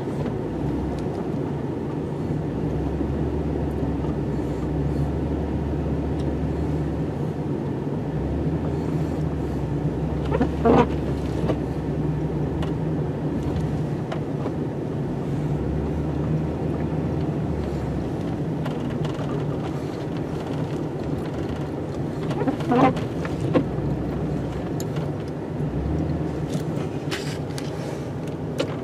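Snow plow truck's engine running steadily while the truck backs slowly with the plow down, heard from inside the cab. There are two short knocks, about 11 and 23 seconds in.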